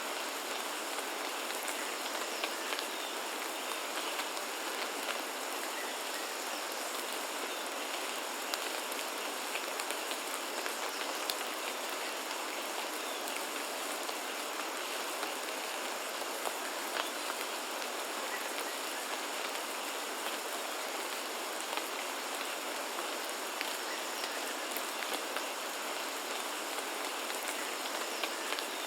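Steady rain falling as an even hiss, with scattered individual drops tapping a little louder.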